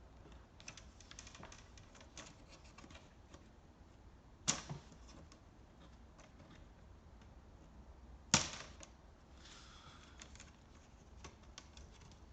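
Plastic screen bezel of a Lenovo ThinkPad T440p being pried off by hand: light scattered clicks of the plastic, with two sharp snaps about four seconds apart as its retaining clips pop free.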